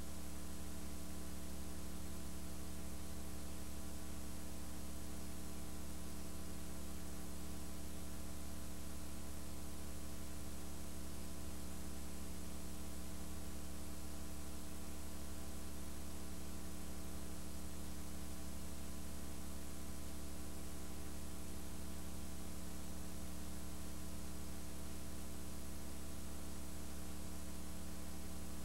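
Steady electrical mains hum with a layer of hiss, unchanging throughout; no sound of the event itself comes through.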